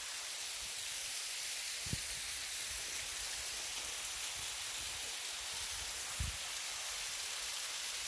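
Waterfall: a steady hiss of falling water, with two brief low thumps about two seconds in and again about six seconds in.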